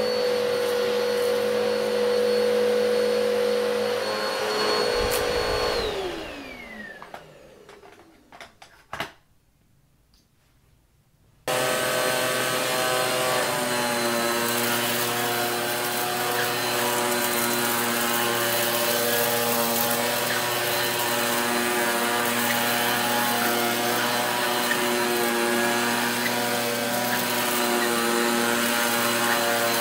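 A vacuum cleaner motor runs steadily, then is switched off and winds down, its pitch falling over about two seconds, followed by a few clicks and a few seconds of near silence. About halfway through, a Shark upright vacuum cleaner starts abruptly and runs steadily on carpet.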